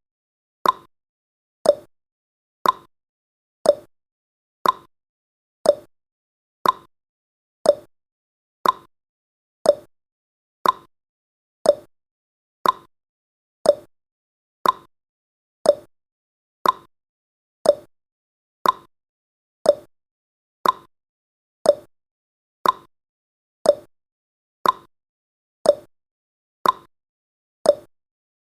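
Countdown timer's clock-tick sound effect: a short, sharp tick once a second, evenly spaced and steady.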